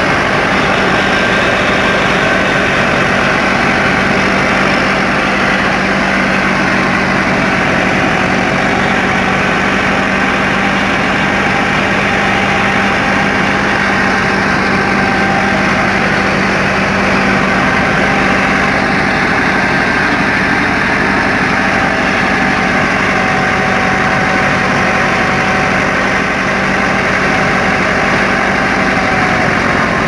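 A tractor-driven wheat thresher running steadily: a Massey Ferguson 375's diesel engine working under load to power the threshing machine, with the thresher's mechanism running along with it in a loud, even drone.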